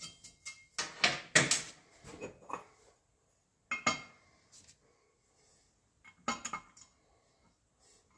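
Small metal parts and a hand tool clinking and clattering against an alloy wheel and a steel workbench as a centre-cap adapter plate is fitted and screwed in, in three short bursts of clicks and knocks, the loudest about a second in.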